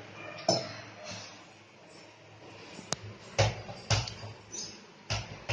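Mustard seeds popping in hot oil in a kadai: irregular sharp pops, about five loud ones with smaller ones between. The popping is the sign that the oil is hot enough for the tempering to go on.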